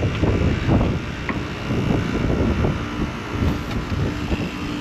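Wind buffeting the microphone: a gusty, uneven low rumble. A couple of faint metallic clicks come from a hex key being handled at a service valve, and a faint steady hum comes in about three seconds in.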